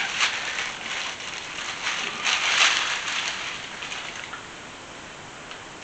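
Food sizzling and crackling in a hot frying pan, busiest in the first few seconds and settling to a faint steady hiss about four seconds in.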